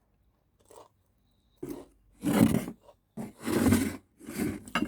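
Close-miked eating noises from a person: four or five loud, rough bursts of about half a second each, coming faster after the first second.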